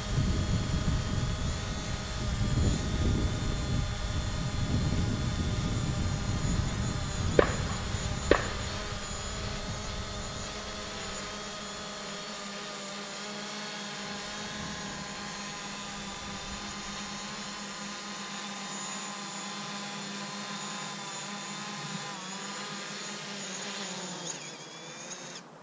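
DJI Mavic Pro quadcopter's propellers whining steadily as it hovers low, then its motors dip in pitch and stop as it settles onto its landing pad near the end. A low rumble runs under the whine for the first ten seconds, and two sharp clicks come about seven and eight seconds in.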